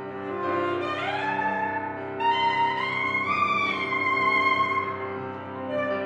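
Alto saxophone and piano playing a classical sonata; the saxophone slides up in pitch about a second in, then holds a long high note for about three seconds over the piano.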